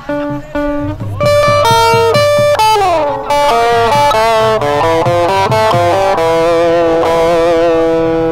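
Loud music: a lead melody that slides and bends in pitch over low drum strokes, getting louder about a second in.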